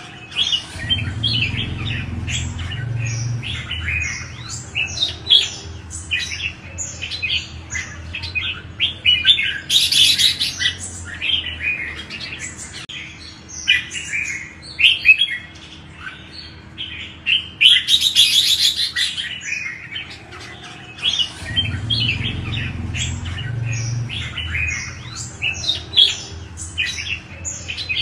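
Red-whiskered bulbuls singing: a busy, continuous run of short, quick chirping phrases, with two harsher bursts about ten and eighteen seconds in.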